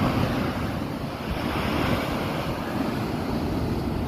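Sea surf breaking against a rocky shore, with wind buffeting the microphone as a steady low rumble; the wash of the surf swells up about a second in.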